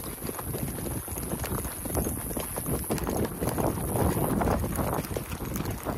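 Horses' hoofbeats clip-clopping on a trail as the horses are ridden along.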